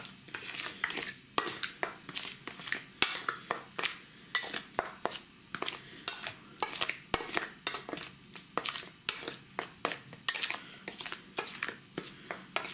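Metal fork clinking and scraping against a stainless steel bowl while stirring chum salmon roe with salt for dry-salting: a run of sharp, irregular clicks, several a second.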